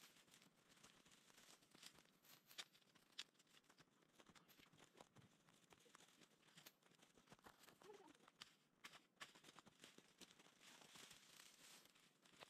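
Very faint crackling and rustling of dry brush and dead branches being pulled and dragged into a pile by hand, with scattered small snaps.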